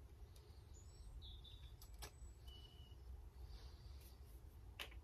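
Near silence: room tone with a low hum, a few faint short high chirps and a couple of soft clicks.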